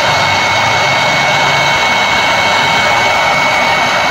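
Electric heat gun running steadily, blowing hot air with a constant rush and a thin steady whine, to shrink heat-shrink tubing over spliced wires.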